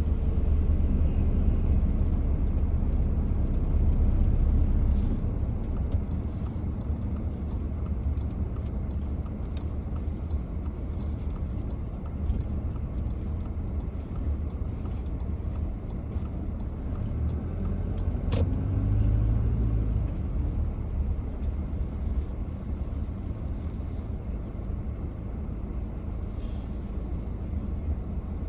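Car driving along a road: a steady low rumble of tyres and engine, swelling briefly about two-thirds of the way through.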